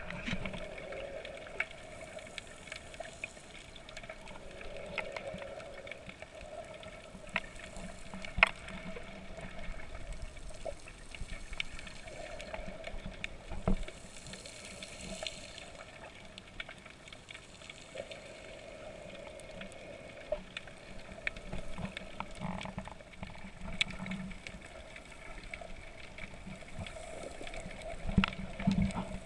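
Water heard through a camera held underwater: a muffled wash with scattered sharp clicks and a few louder low thumps, over a steady hum.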